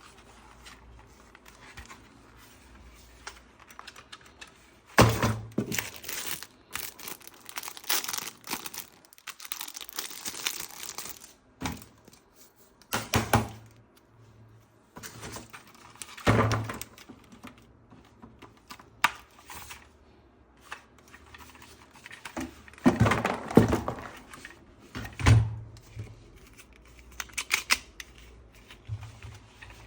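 Handling and unpacking noises: plastic packaging crinkling and tearing, with irregular knocks and clicks in scattered clusters.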